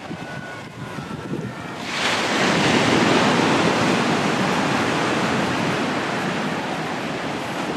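Sea waves on a beach: quieter surf at first, then a wave breaks about two seconds in and its wash runs on, slowly fading.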